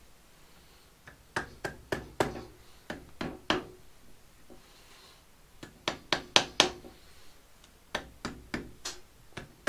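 Rubber mallet tapping on a cam holder of a Honda CB750 cylinder head, to break loose a part that is stuck on. The light taps come in about four short bursts of four to six blows, each with a faint metallic ring.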